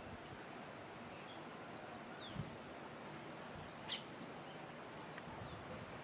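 Countryside ambience: a steady high-pitched insect trill with a few short, downward-sliding bird chirps over it, on a soft background hiss.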